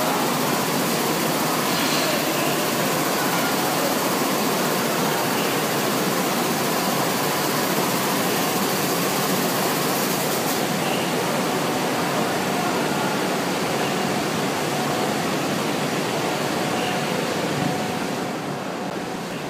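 Steady, loud running noise of printing presses, a dense even mechanical din with no distinct strokes, fading and losing its hiss near the end.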